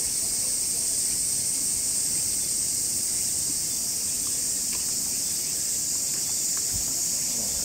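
Steady, high-pitched drone of insects calling in chorus, unbroken and unchanging in level.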